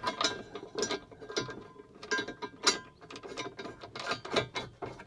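A run of irregular clicks and knocks as the parts of a tractor-cab monitor mount, its bolts and washers, are handled and worked with hand tools.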